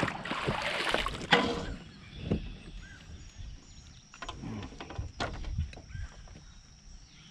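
Handling noise from a smallmouth bass being laid on a plastic fish-measuring board in a kayak. A loud rustling burst in the first second and a half, then a few scattered knocks and taps on the plastic.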